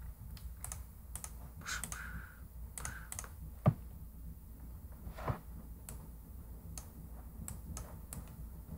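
Faint, irregular clicks of a computer keyboard and mouse, with a sharper click a little past three and a half seconds in, over a steady low hum.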